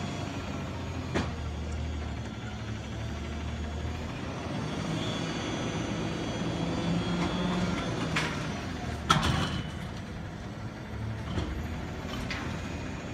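CNG Autocar McNeilus garbage truck running while its Curotto-Can arm lifts the can over the cab to dump it and lowers it again. The engine note rises while the arm lifts, with a few knocks and one sharp bang about nine seconds in.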